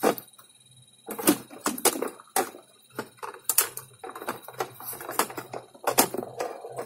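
Irregular knocks, taps and scrapes from a disassembled LCD monitor's metal panel and plastic frame being lifted, tilted and shifted by hand.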